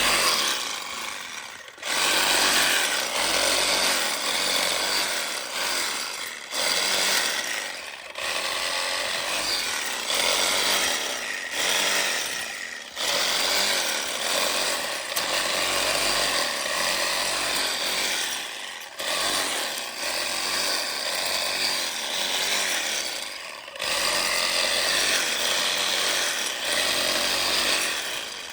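DeWalt cordless reciprocating saw with a Diablo pruning blade running and cutting through wood, in runs of a few seconds broken by short stops.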